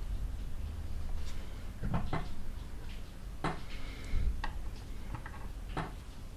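Hands adjusting a clay model: about six light clicks and knocks scattered unevenly, over a steady low room hum.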